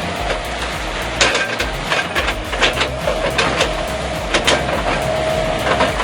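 Heavy wood-processing machine working, a steady mechanical noise with a faint whine, broken by many sharp cracks and snaps of wood being crushed.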